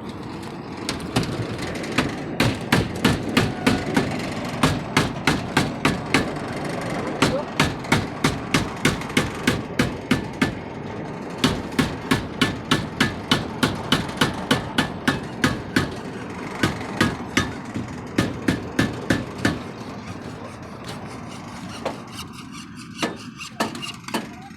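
A hammer striking repeatedly, about three to four blows a second, in runs broken by short pauses, over a steady background noise.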